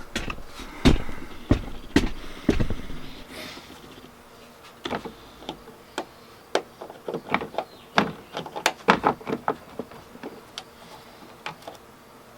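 Scattered sharp clicks and knocks of hand work on a liftgate gas strut and its fittings. A few heavier knocks come in the first three seconds, then a quicker run of lighter clicks from about five seconds in.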